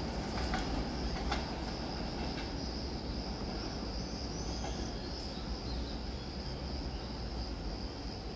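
Railway station background noise: a steady low rumble with a constant high-pitched hiss over it, and a couple of faint clicks in the first second and a half.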